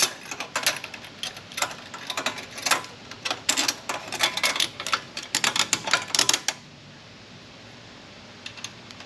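Irregular metallic clicking and clinking of a V-band exhaust clamp and its nut being fitted by hand, stopping about six and a half seconds in, with a few light clicks near the end.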